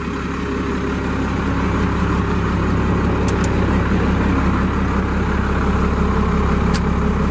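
1988 Ford L700's 12-valve Cummins diesel idling steadily, with a few faint clicks about halfway through and again near the end.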